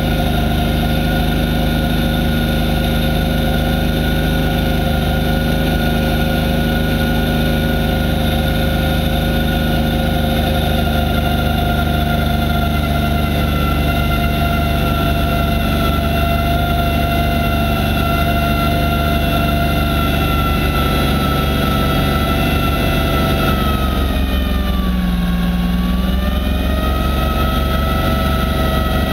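Massey Ferguson 1020 compact tractor's three-cylinder diesel engine running steadily at working speed while driving a front-mounted snowblower, heard from inside the cab. About three-quarters of the way through, the engine note sags for a couple of seconds as it lugs under the snow load, then picks back up.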